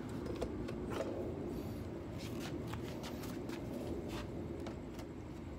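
Light rustling and scattered clicks of hands handling the rear-wing stabilizers and tape on a car's spoiler, over a steady low hum.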